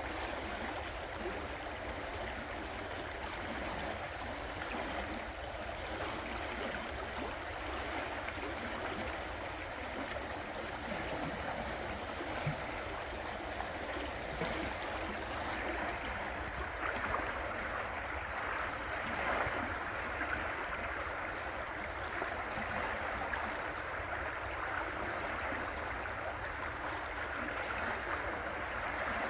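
River water flowing and rushing over rocks in a steady, continuous stream.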